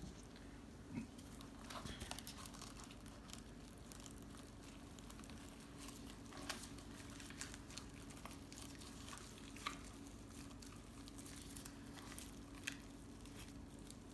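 Soft tearing and squishing of tender smoked pork shoulder being pulled apart, with scattered light clicks and taps. A faint steady low hum runs underneath.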